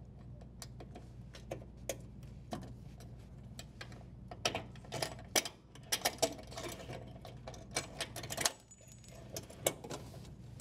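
Small clicks and rattles of power wires and a strain relief being pulled through a hole in a dishwasher's sheet-metal junction box bracket, sparse at first and thickest in the second half.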